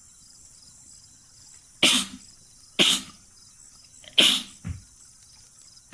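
A person sneezing three times in quick succession, each sneeze a short, sharp burst about a second apart.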